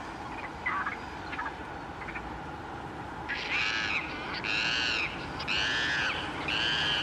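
Repeated loud, harsh animal calls starting about three seconds in, each about half a second long and roughly one a second, rising and falling in pitch, over steady background noise.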